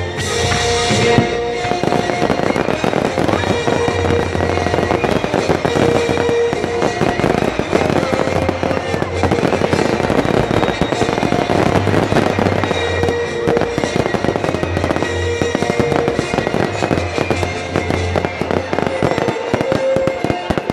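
Fireworks display: dense, continuous crackling and banging of shells bursting, many cracks a second, with music playing underneath.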